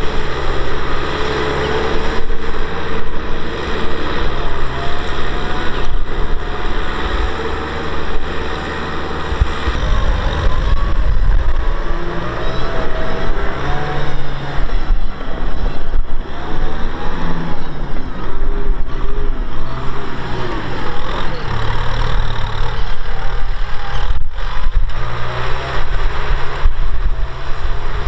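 Kubota M6040SU tractor's diesel engine running steadily under load while pulling a disc plough through the soil, its pitch wavering slightly.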